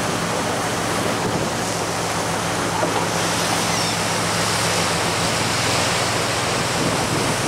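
Steady rush of wind and the boat's wake, with the low, even drone of the boat's engine underneath. A few faint gull cries come through, one about three seconds in.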